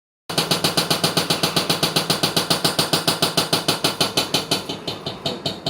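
Washing machine banging rapidly and rhythmically, about seven knocks a second, the beat slowing and fading near the end as the drum winds down. The machine has shifted out of place, which is put down to an unbalanced drum.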